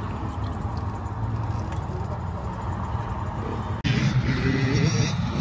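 A steady low rumble, then an abrupt cut about four seconds in to louder dirt bike engines running on a motocross track.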